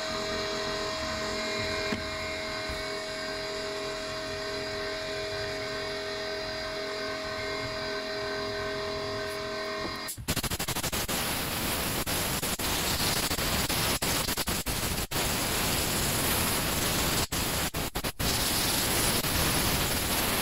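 Steady machine hum with several fixed whining tones. About ten seconds in it gives way to a louder steady hiss, which cuts off briefly several times.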